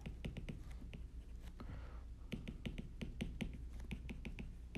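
Faint, quick, irregular light clicks of a stylus tip tapping on a tablet screen during handwriting.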